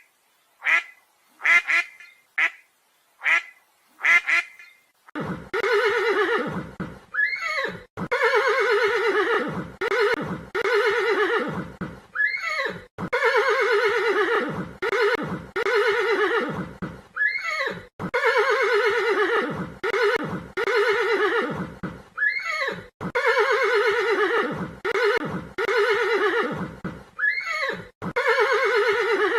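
A duck quacking, short calls about one a second, for the first five seconds; then a horse whinnying, the same long whinny repeating about every five seconds, each with a rising squeal.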